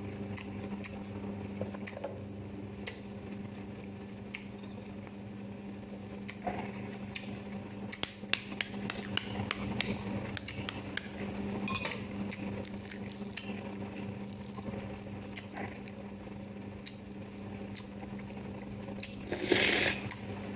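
Eating with utensils: scattered sharp clicks and taps of metal on dishes, with a quick run of clicks about eight seconds in and a short rustling burst near the end, over a steady low electrical hum.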